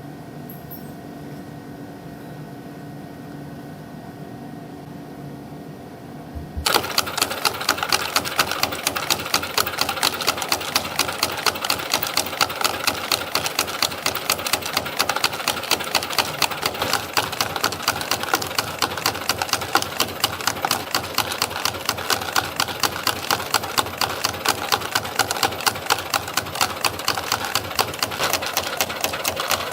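YHM CF-310 CNC compression spring coiling machine, first a quiet steady hum. About six and a half seconds in it starts abruptly into a loud, rapid, evenly repeating clatter as it feeds and coils 0.8 mm wire into small compression springs.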